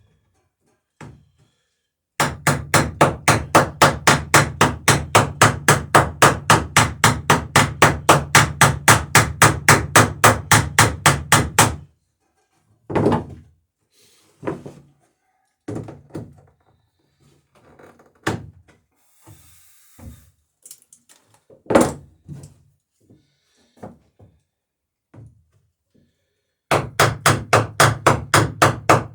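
Hammer riveting a wooden boat's planking: a fast, even run of blows, about four a second, for some ten seconds, then a spell of scattered single knocks and taps, and a second fast run of blows starting near the end.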